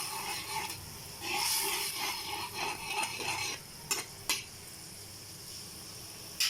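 A spatula stirring and scraping an onion, spice and ginger-garlic masala in a pan as it sizzles, then two sharp knocks about four seconds in, followed by a quieter steady sizzle.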